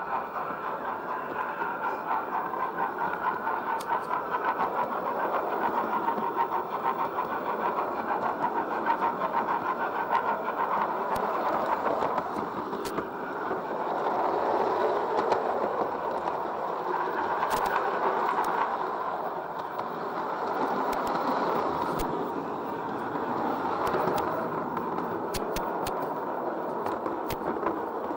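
LGB large-scale model train running along its track: a steady electric motor and gear whir with wheels rattling on the rails, heard close up from a camera riding on the train. A few sharp clicks come in the second half, as the wheels cross rail joints and points.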